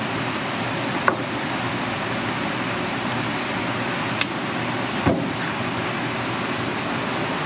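Steady rushing background noise with three sharp knocks: a knife blade striking the wooden cutting board while fat is trimmed off a dry-aged steak. The knocks come about a second in, after four seconds and after five.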